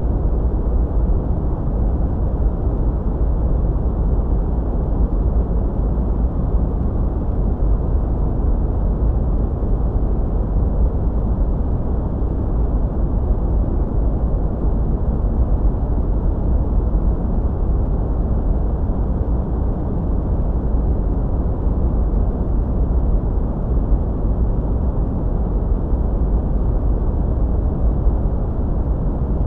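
Steady, unchanging sleep noise: a dark, deep rumble weighted heavily to the bass, with little hiss in the treble.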